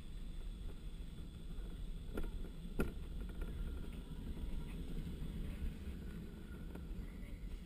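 Wheeled luge cart rolling down a concrete track: a steady low rumble of its wheels on the concrete, with two sharp knocks a little over two and nearly three seconds in.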